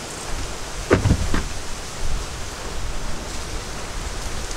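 Steady outdoor background noise with a low rumble. About a second in come two short sounds that fall in pitch.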